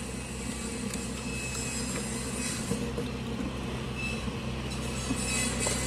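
Pressure washer running with a steady low drone, with no pause or change in pitch.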